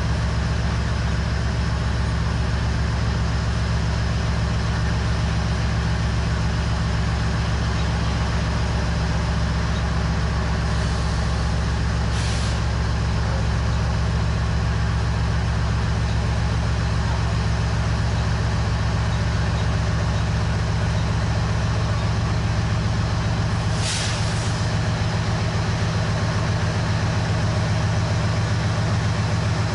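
Diesel freight locomotives running as they roll slowly past, a steady low engine drone. Two short hisses of air cut in, one about 12 seconds in and a stronger one about 24 seconds in.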